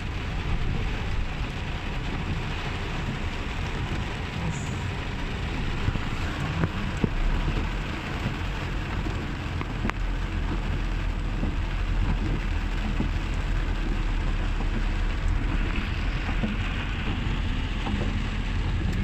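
Heavy rain pouring steadily, with a steady low rumble underneath and a few brief sharp ticks.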